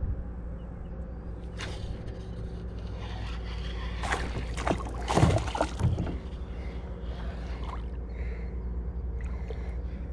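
Knocks and scrapes of gear being handled in a kayak: one about two seconds in and a cluster between four and six seconds, over a steady low hum.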